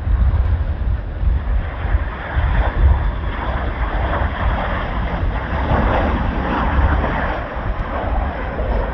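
Strong gusty wind buffeting the microphone, a heavy fluttering rumble, over a steady rushing noise that swells about halfway through.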